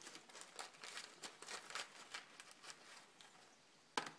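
Faint rustling of a paper coffee filter as small transmission bearings are wiped clean of old grease, in a run of short strokes that fades out after about three seconds. A single sharp click comes near the end, like a small metal part set down.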